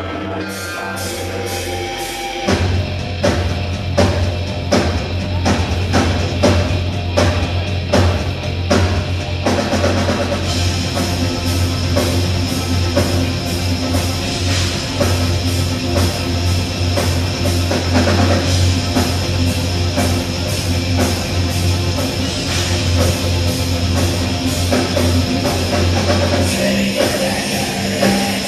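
Live heavy rock band playing: distorted electric guitars, bass and drum kit. After a quieter opening, the full band comes in loud about two and a half seconds in, with a steady drum beat.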